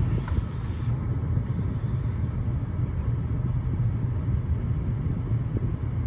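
Steady low rumble of a motor vehicle, holding an even level throughout, with no bird calls standing out.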